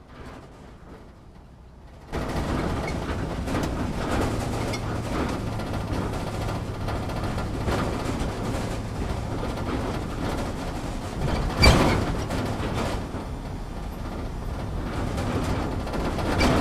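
Cabin noise inside an off-road vehicle driving over rough ground: a steady engine hum under dense rattling and knocking of the body. It starts abruptly about two seconds in, and one heavy jolt stands out about three-quarters through.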